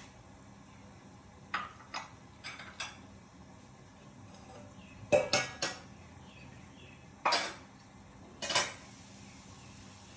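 Metal utensils clinking against a cooking pot, in several short groups of sharp clinks, the loudest about halfway through.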